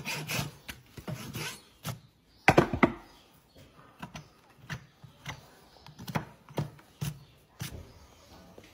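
Farrier's hand tools working a shod horse hoof: short rasp strokes across the hoof for about two seconds, then a loud sharp knock, then a series of short strokes on the hoof about every half second.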